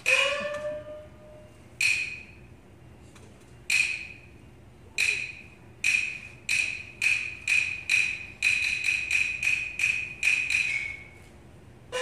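Peking opera percussion accompaniment: a gong stroke whose pitch rises opens the passage. Sharp, ringing strikes follow, a couple of seconds apart at first, then quickening into a fast run of strikes that stops near the end.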